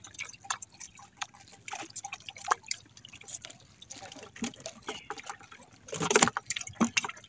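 Water splashing and dripping beside a small outrigger boat as a line of hooked fish is pulled from the sea and the fish are unhooked. Scattered small clicks run through it, with a louder rush of noise about six seconds in.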